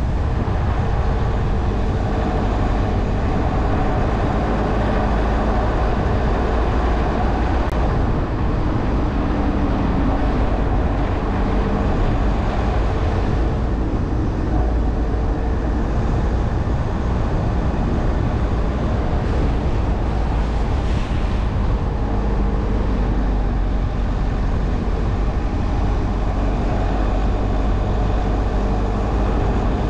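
Jeep Trailhawk driving along at road speed: a steady low rumble of tyre and road noise with the engine's faint hum under it.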